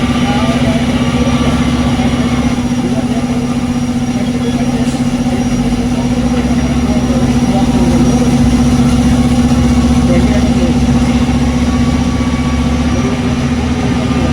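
Concrete batching plant machinery running, a loud steady mechanical hum with a low rumble that grows a little heavier about halfway through.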